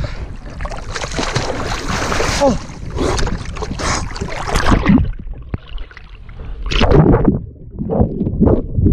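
Lake water splashing and sloshing right against an action camera as a swimmer strokes along at the surface. After about five seconds the sound turns dull and muffled as the camera goes under the water, with a couple of louder surges of water.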